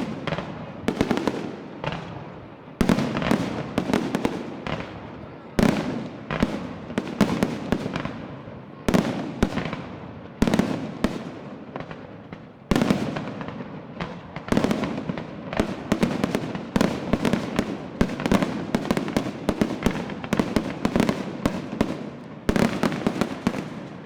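Fireworks display: aerial shells bursting in rapid clusters of sharp bangs, a fresh volley every second or two, each dying away in a rolling echo.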